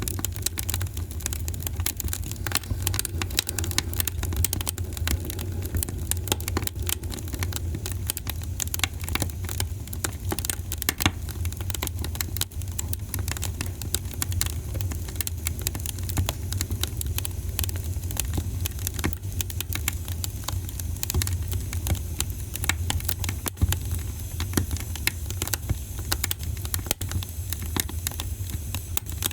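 Wood fire in a fireplace crackling steadily, with frequent small pops and snaps over a low rumble of the burning fire.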